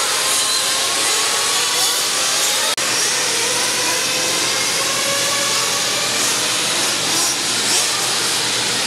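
A pack of radio-controlled racing cars running on a dirt track, many high-pitched motors whining and rising and falling in pitch as they speed up and ease off, with a brief click a little under three seconds in.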